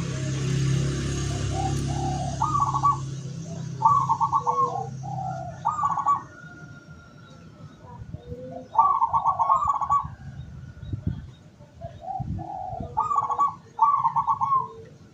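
Zebra doves (perkutut) cooing: short trilled, bubbling coo phrases repeated every second or two, some overlapping as if more than one bird is calling. A low steady hum sits under the first few seconds.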